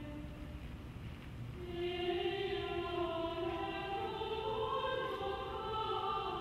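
Choral music: voices holding long, slowly shifting chords, swelling louder about two seconds in.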